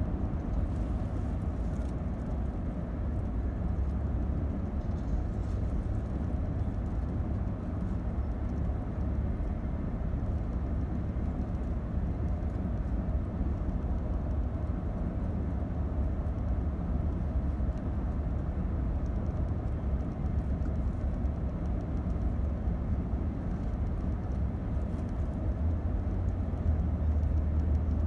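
Steady low rumble of a car's engine and tyres heard from inside the cabin while driving at highway speed, growing a little louder near the end.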